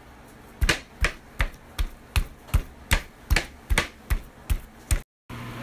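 A hand pounding seasoned raw steaks on a plate to work the seasoning and tenderizer into the meat: about a dozen even thuds, roughly two and a half a second, stopping about five seconds in.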